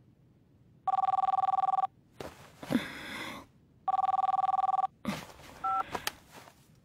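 Telephone ringing with a warbling two-tone trill, two rings of about a second each, three seconds apart. A rustle follows each ring, and a short two-note beep sounds about two-thirds of the way through.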